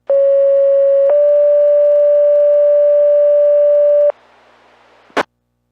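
Two-tone sequential fire pager alert tones received on a VHF low-band radio. A steady tone lasts about a second, then steps to a slightly higher tone held about three seconds. This is the tone pair that sets off the fire department's pagers, sent here as the weekly test. The tones are followed by a moment of faint radio hiss and a short squelch-tail burst as the transmission drops.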